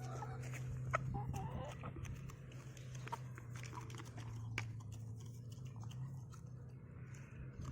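Scattered soft clicks and taps over a steady low hum.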